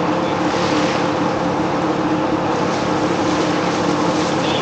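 Steady drone of an engine running nearby, unchanging in pitch, with splashing from swimmers wading and running through shallow water in the second half.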